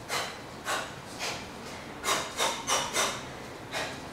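Short, sharp hissing exhalations through the teeth, one with each shadowboxing punch: about eight quick breaths in uneven groups, several close together in the second half.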